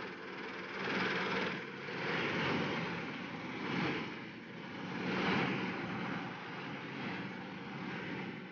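Dasmesh 9100 combine harvester running while cutting grain, a steady engine and machinery noise that swells and fades every second or two.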